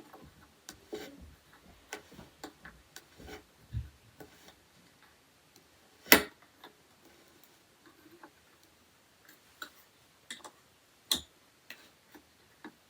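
Scattered light clicks and taps from rack parts and tools being handled during assembly of a flat-pack shoe rack, with a sharper knock about six seconds in and another about eleven seconds in.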